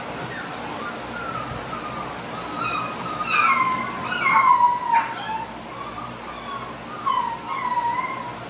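XL pit bull puppies whining and whimpering: repeated high, wavering cries that overlap, loudest a few seconds in.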